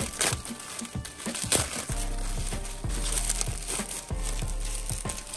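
Plastic bubble wrap crinkling and crackling in the hands as it is unwrapped, in irregular sharp crackles.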